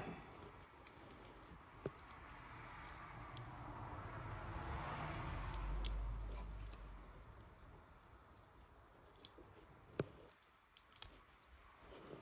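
Faint clicks and handling noise from small plastic wire connector parts being worked by hand, with a soft rush of noise that swells and fades in the middle.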